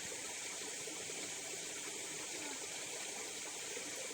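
Steady rushing and trickling of flowing river water.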